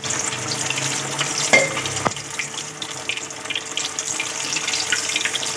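Breaded potato-and-cheese donuts deep-frying in hot oil: a steady sizzle with fine crackling that starts suddenly as they go in.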